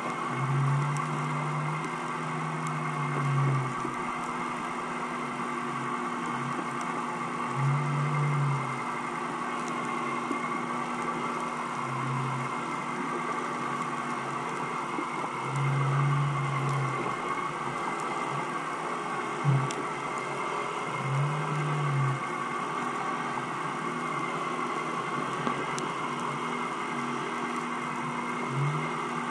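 A steady mechanical hum heard underwater, holding several fixed tones. A deeper hum swells up and fades for a second or two about six times, at irregular intervals.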